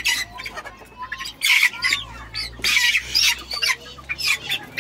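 Young Ko Shamo chickens squawking and cheeping in a group, with loud harsh squawks about one and a half and two and a half seconds in as a few of them squabble.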